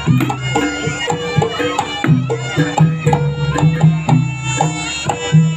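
Jaranan gamelan accompaniment: kendang hand drums beating a quick, steady rhythm under a reedy slompret shawm melody and ringing metal gamelan notes.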